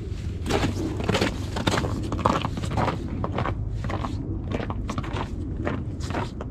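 Footsteps crunching on snow-covered lake ice, about two steps a second, as a person walks across it.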